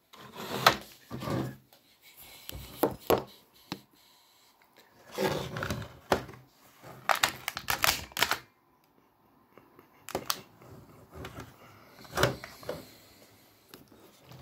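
An old Colt Double Eagle airsoft pistol being handled: irregular bunches of sharp plastic clicks and clacks from its mechanism, and knocks of the gun against a wooden desk, with a quiet gap a little past the middle.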